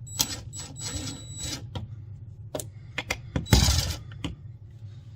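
Clicks and rattles from handling a smoke detector's old ceiling mounting ring and its screws. A faint, steady high whine runs through the first second and a half, and a louder scraping rustle comes about three and a half seconds in.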